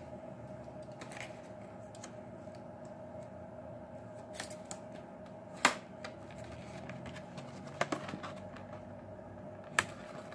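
A handful of sharp plastic clicks and taps from a sealed acrylic die-cast display case being handled and opened, over a steady low hum. The loudest clicks come about five and a half seconds in and near the end.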